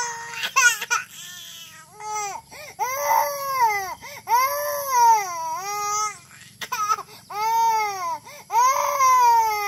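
Baby crying hard: a run of loud, high wailing cries about a second each, every cry rising then falling in pitch, with short catches of breath between.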